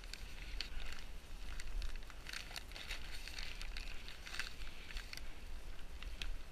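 Dry Postcrete mix pouring from its plastic bag into the hole, the grit making a dense irregular patter of small ticks as the bag rustles, over a low rumble.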